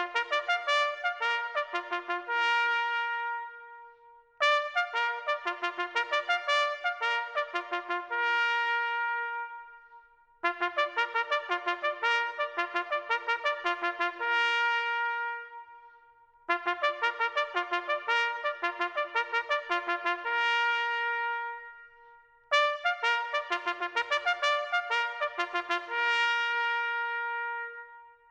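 Solo bugle call on a trumpet-like brass horn, the call sounded to end a remembrance silence: five phrases, each opening with quick repeated notes and closing on a held note, the last one fading out near the end.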